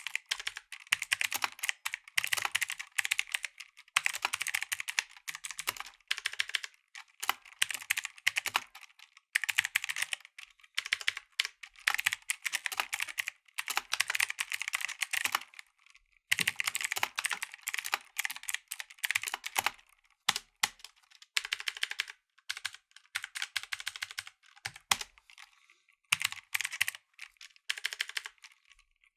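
Mechanical keyboard with clicky blue switches being typed on in quick runs of keystrokes, with short pauses between bursts.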